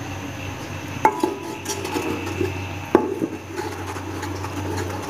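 Wooden spoon stirring and scraping thick masala paste around a metal cooking pot, knocking sharply against the pot about a second in and again about three seconds in. A steady low hum runs underneath.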